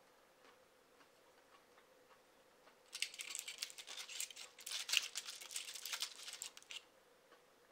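Foil baking cup crinkling and crackling, with spice salt rustling, as a lamb skewer is pressed and rolled in the chilli-cumin salt inside it: a dense crackle of small clicks starting about three seconds in and stopping about four seconds later.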